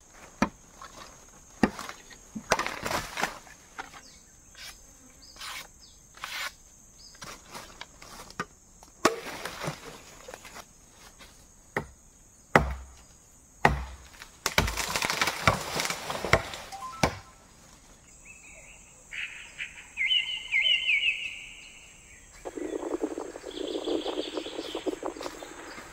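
A scattered series of sharp knocks and rustling noise over a steady high insect drone, with a few short chirps about two-thirds of the way through.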